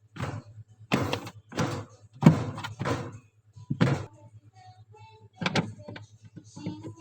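A series of short knocks and scrapes from handling hard objects, about one every half to one second, over a steady low hum.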